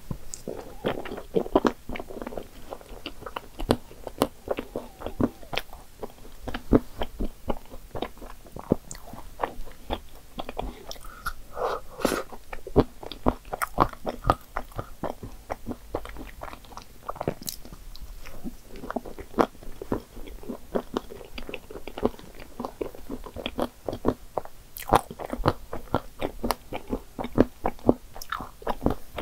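Close-miked chewing and biting of chocolate-chip-topped cream puffs with whipped cream, soft wet mouth sounds broken by many small sharp crunches at an irregular pace.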